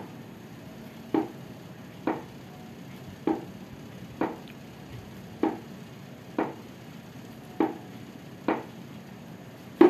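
A small wooden stool knocking under a foot in a rhythmic knee exercise, with the knee worked by both hands: nine short, sharp knocks about a second apart.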